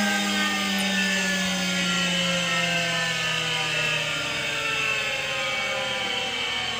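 A machine's steady droning hum with many overtones, its pitch sliding slowly and evenly downward.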